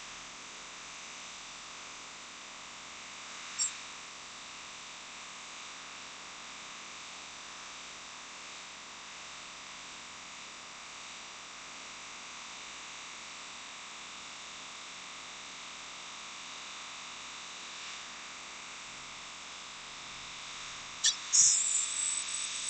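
Steady airy hiss of a hot-air rework station blowing over a smartphone motherboard while the chips are heated for removal. There is a single click about three and a half seconds in, and near the end a click followed by a louder, sharper hiss that tails off.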